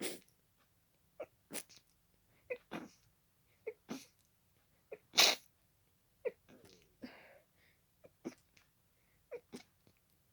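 A person sneezing over and over in a rapid sneezing fit, about a dozen short, sharp sneezes coming one or two a second, the loudest about halfway through.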